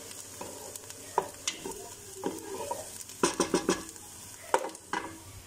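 Minced garlic sizzling in hot oil in an aluminium pressure-cooker pot, with a wooden spoon scraping and knocking against the pot as it is stirred. A quick run of knocks comes about three seconds in, and two more sharp knocks come near the end.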